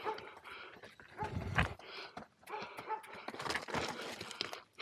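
Mountain bike rolling down a rocky trail: tyres crunching and knocking over loose stones and the bike rattling on each hit, with short squeaks mixed in.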